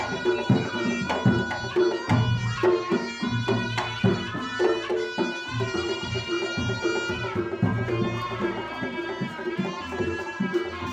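Reog Ponorogo gamelan music: a slompret (reed shawm) plays a wavering, bending melody over driving kendang drumming and lower pitched gong tones.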